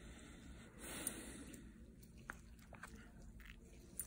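Near-quiet room tone with a soft breathy rustle about a second in and a few faint small clicks.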